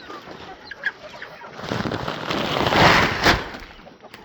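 Chickens clucking, with a loud stretch of rustling noise and a single knock about three seconds in.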